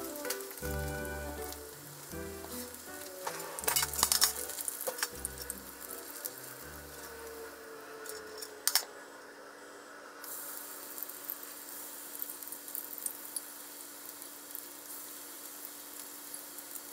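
Battered vegetable tempura sizzling steadily in shallow oil in a frying pan, with a few sharp clinks about four seconds in and again near nine seconds. Background music plays under it for roughly the first half.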